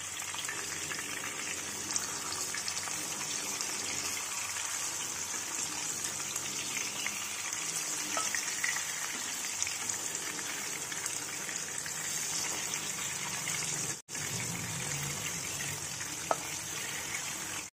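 Rohu fish steaks sizzling steadily in hot mustard oil in a kadai, with a few faint clicks as a metal spatula turns them. The sizzle cuts out for an instant about fourteen seconds in.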